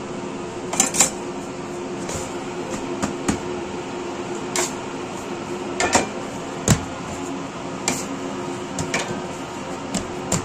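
A large mass of bread dough being folded over and pressed by hand on a floured steel table, giving irregular soft slaps and thuds. Under it runs a steady hum from bakery equipment.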